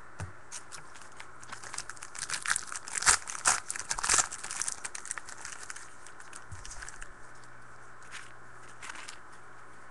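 Foil wrapper of a trading-card pack crinkling and tearing as it is opened and handled, a dense run of sharp crackles strongest from about two to four and a half seconds in, then a few lighter rustles.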